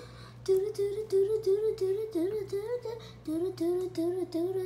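A child humming a quick wordless tune, note after note, with a brief break about three seconds in.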